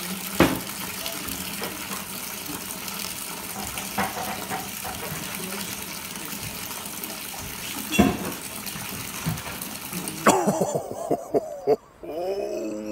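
Wort pouring in a steady splashing stream from the spigot of a no-chill cube into a plastic fermenting bucket, as the cooled wort is transferred to the fermenter. The stream stops about ten seconds in and a man's voice follows.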